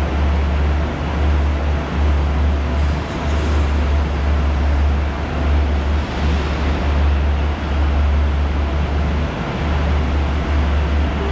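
Railway station hall ambience: a loud, steady deep rumble under a wash of echoing noise.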